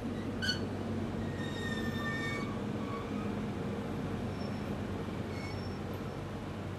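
JR Freight DD200 diesel-electric locomotive, its Komatsu V12 diesel engine running with a steady hum as it rolls slowly past at walking pace. A few brief high-pitched squeals come in the first half.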